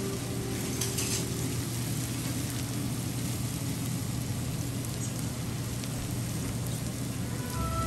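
Sautéed bitter melon with egg sizzling in a hot pan: a steady crackling hiss, with a low steady hum underneath.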